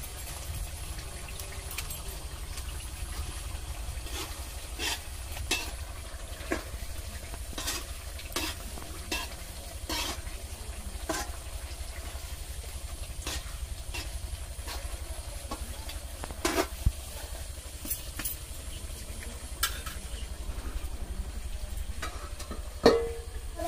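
Chicken curry being stirred in a metal kadai over a wood fire: irregular scrapes and clinks of a utensil against the pan, about one a second, over a faint steady sizzle and a steady low hum.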